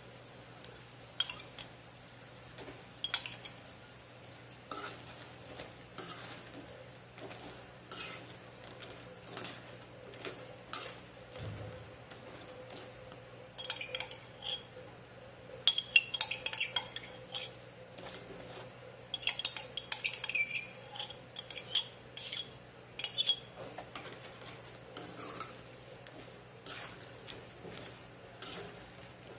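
Metal spoon clinking and scraping against a metal wok while prawns are stirred in sauce. Scattered single clinks at first, then a busier run of clinking and scraping through the middle stretch.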